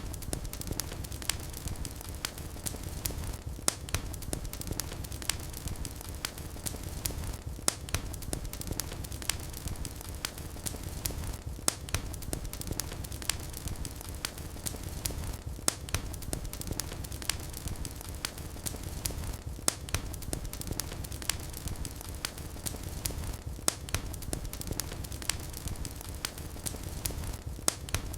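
Wood fire crackling in a fireplace: a steady low rumble of flames with frequent small crackles and a louder pop about every four seconds.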